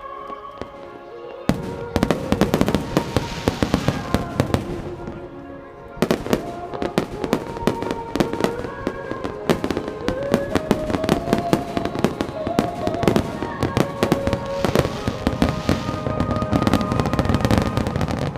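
A fireworks display going off in a dense barrage of rapid bangs and crackles, with a short lull about six seconds in, while music with a wandering melody plays along.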